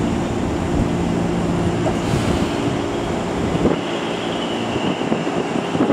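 JR East 205 series electric train standing at the platform, its onboard equipment giving a steady pitched hum with a low rumble under it. A little under four seconds in the low rumble drops away, and a few short knocks come near the end.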